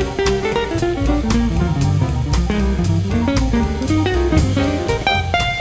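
Background jazz music with no singing: an instrumental passage with a stepping melody line over a steady drum beat.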